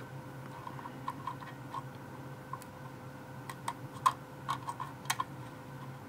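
Faint, irregular clicking of the detented code wheels on a key cabinet's combination lock, turned by thumb with a thin metal feeler pick pressed against them. The wheels are being spun to feel for the groove in each inner code wheel, which gives away the digit of the combination. The clicks come a few at a time, more often in the second half.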